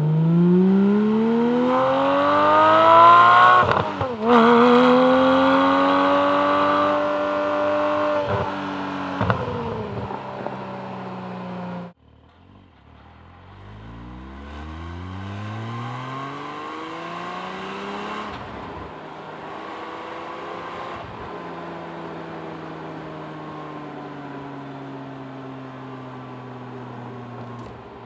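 Porsche 718 Cayman GT4's 4.0-litre flat-six heard through its exhaust from outside the car as it drives. It accelerates loudly with a rising note and a quick upshift about four seconds in, then holds a steadier note. After an abrupt cut about twelve seconds in, a second, quieter run climbs through the revs and settles into a steady cruise; this is the other exhaust setup, stock or valved X-pipe.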